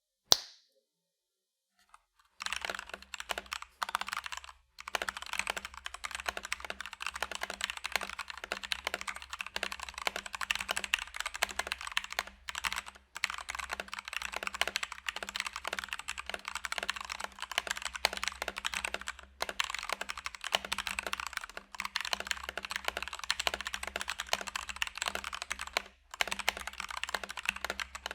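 Fast continuous typing on an FL eSports 68 mechanical keyboard with Kailh switches, a dense run of key clacks that starts about two seconds in, with a few brief pauses.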